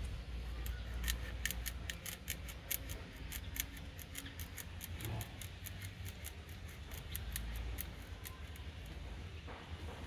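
Small knife making grafting cuts into a young papaya trunk: a quick run of crisp, snipping clicks, about five a second, that stops about eight seconds in.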